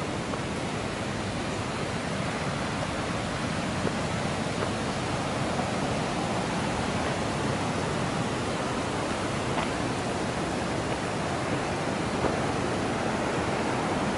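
Steady rush of river rapids, growing slightly louder toward the end.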